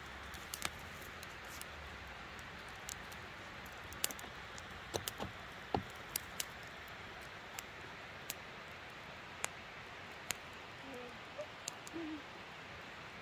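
Wood fire crackling on a metal fire-pit grate: irregular sharp pops and snaps, a few of them loud, over a steady outdoor hiss.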